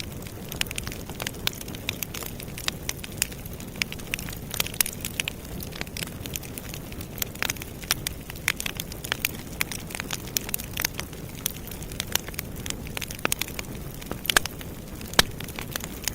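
Campfire burning, crackling with many irregular sharp pops over a steady low rumble of flames.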